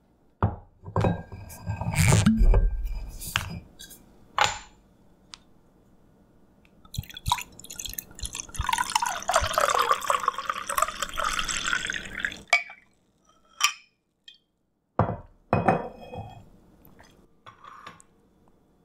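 A wine bottle is handled and opened with several knocks and a low thump, then wine is poured into a glass for about five seconds, the pour rising in pitch near its end. A few short glass clinks follow.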